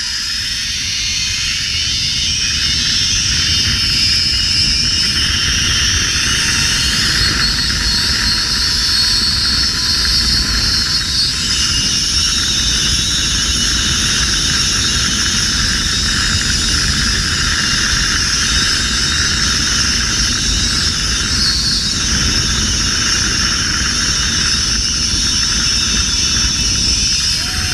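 Zip-line trolley pulleys running fast along the steel cable, a steady high whine, over heavy wind rushing on the microphone.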